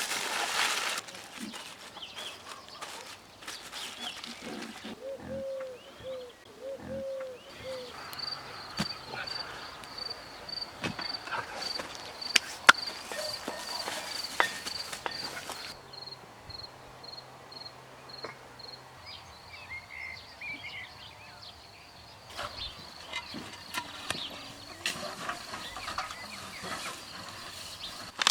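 A cricket chirping steadily, about two high chirps a second, over scattered clicks and knocks, with one sharp knock about halfway through. A few short low calls sound near the start.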